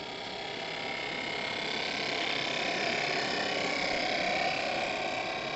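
Steady hiss of a model steam boat's small oscillating-cylinder steam engine and boiler, swelling as the boat passes close and easing off near the end.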